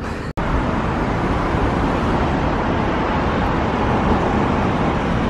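Steady roar of city road traffic, an even wash of noise with a low rumble and no single passing vehicle standing out. It cuts in abruptly after a brief dropout near the start.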